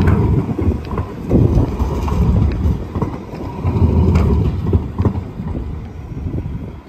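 Siemens Combino low-floor tram passing close by, its wheels rumbling and clattering over the rails and junction crossings. The sound fades near the end as it moves away.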